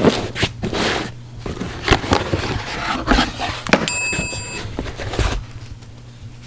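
A cardboard product box being opened and its packaging handled: a run of scrapes, rustles and sharp knocks, with a brief high ringing tone about four seconds in. The handling dies down after about five seconds.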